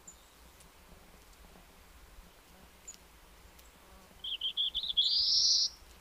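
Black-throated blue warbler singing once: a few short buzzy notes, then a longer buzzy note that rises in pitch, starting about four seconds in. Two faint high chips come before it.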